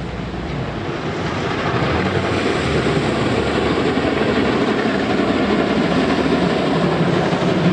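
Two steam locomotives working hard at the head of a passenger train, their exhaust and running gear merging into a dense, steady rush of sound. It grows louder over the first couple of seconds as the train comes close, then holds.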